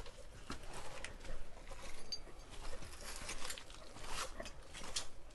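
Rain pattering steadily, with dense irregular drops and ticks.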